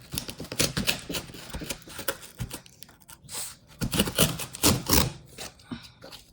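Knife cutting and scraping through the tape and cardboard of a shipping carton: a dense, irregular run of short scratchy clicks and rasps.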